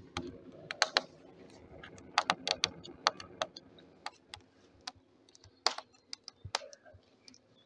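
Rocket stove fire burning kindling: irregular sharp crackles and pops from the burning wood over a low, steady howl of the fire drawing hard up the stack.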